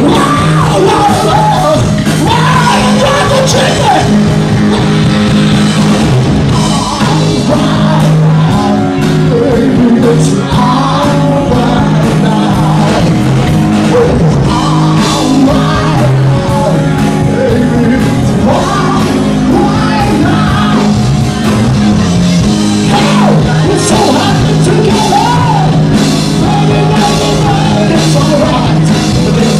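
Live rock band playing at full volume: a male voice singing over electric guitars and a drum kit.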